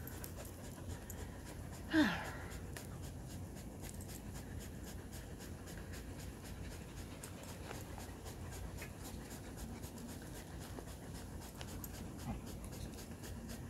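A dog panting steadily and rhythmically. About two seconds in there is a brief falling vocal sound, with a fainter one near the end.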